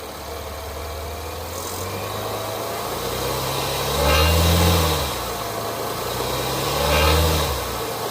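2019 Cadillac XT5 engine running at idle, then revved up and back down twice, about four and seven seconds in. The revs bring out a rattle from the exhaust catalyst heat shield behind the engine, which has worked loose, possibly at failed tack welds.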